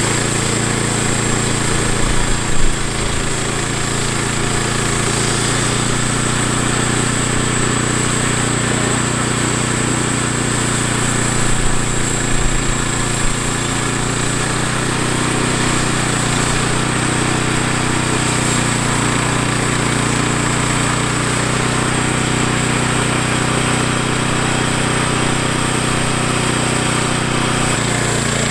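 Woodland Mills HM122 bandsaw mill running under load, its gas engine humming steadily while the band blade cuts through a cedar log. There are a few brief louder bumps about two and a half seconds in and again around twelve seconds in.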